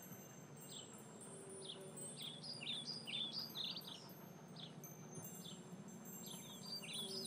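Faint birdsong ambience: short, quick chirps, a few single ones and then rapid runs of them twice, over a faint low background hum.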